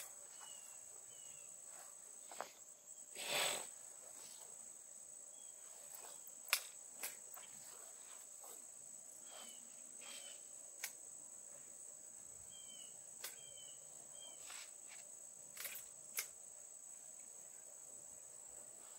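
Insects trilling steadily and high-pitched at dusk, a cricket chorus. Faint short chirps come now and then, with scattered faint clicks and a brief louder rustle about three and a half seconds in.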